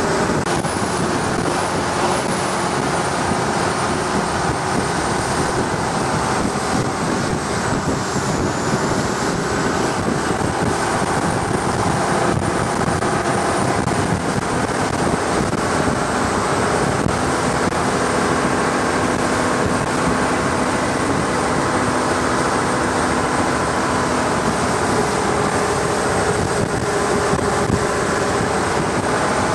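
A longtail boat's engine running steadily while under way: a loud, even drone with a thin, high whine that wavers a little in pitch.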